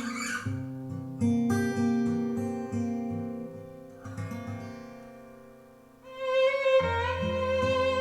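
Recorded music played through B&W 702 S2 floorstanding loudspeakers: an instrumental intro of plucked acoustic guitar notes that ring and die away, then bowed strings and bass come in louder about six seconds in.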